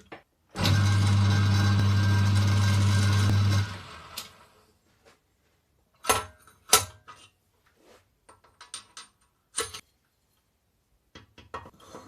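An electric motor, of the kind in a workshop power tool, runs steadily at one speed for about three seconds and then cuts off. Scattered short clicks and knocks follow.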